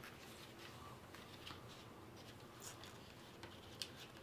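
Faint rustling and a few light ticks as the contents of a card-game starter box are pulled out by hand.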